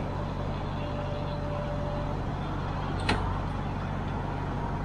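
Steady road and tyre noise heard inside an electric car's cabin while driving, with a single sharp click about three seconds in.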